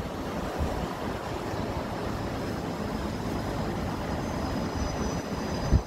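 Steady wash of heavy rain and wind, with gusts rumbling on the phone's microphone and a short low thump near the end.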